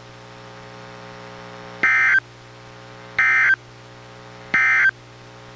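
Three short, identical bursts of warbling SAME data tones, each about a third of a second long and a little over a second apart, over a faint steady hum: the Emergency Alert System end-of-message (NNNN) code that closes the NOAA Weather Radio Required Weekly Test.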